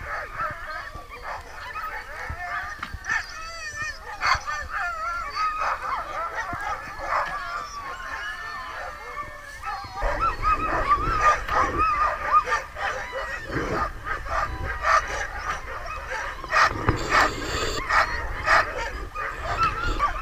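A team of husky sled dogs yipping, whining and barking together in a continuous, excited chorus of overlapping wavering calls. About halfway through, a low rumble comes in underneath and the din grows louder.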